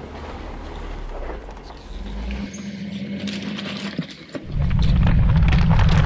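Off-road vehicle engine running. About four and a half seconds in, a much louder low rumble sets in suddenly.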